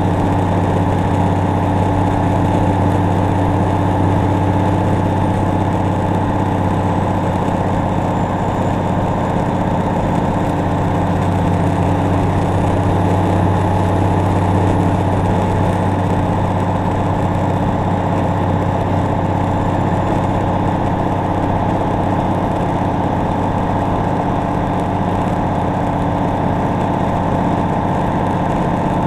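Cummins N14 inline-six diesel of a Peterbilt 379 running steadily under way, with a faint high turbo whistle that rises and falls in the middle.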